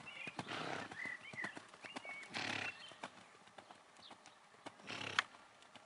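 Hoofbeats of a horse cantering on a sand arena, with three short breathy rushes of noise among them.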